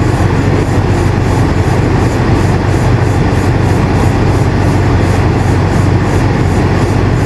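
Air conditioner running steadily: a constant low hum under an even rush of air.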